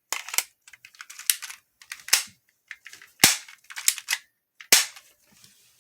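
Small airsoft pistol being worked and fired: a string of about six sharp snaps and clicks at uneven intervals, the loudest about two, three and a quarter and four and three-quarter seconds in.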